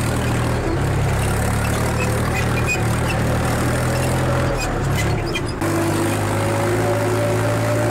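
Steady low engine-like drone of a model tractor running as it pulls a loaded trolley, with a brief dip and a slight change in its tone about five and a half seconds in.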